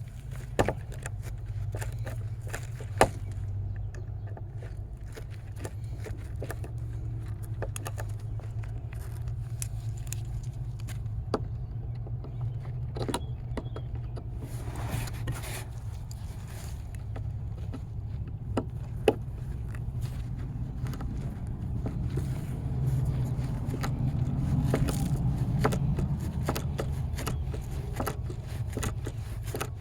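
Small ratcheting screwdriver being worked by hand to drive screws: scattered sharp clicks, scraping and light metallic jangling over a steady low rumble.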